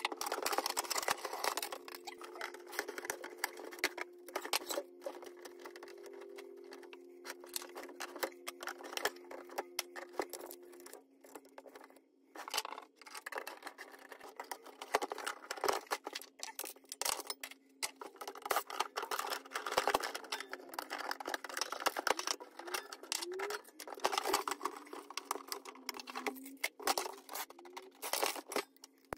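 Screws being backed out of a countertop ice maker's metal and plastic housing with a cordless impact driver and a screwdriver, in short irregular spurts, amid clicks and rattles of screws and loosened panels being handled. A faint steady hum runs underneath.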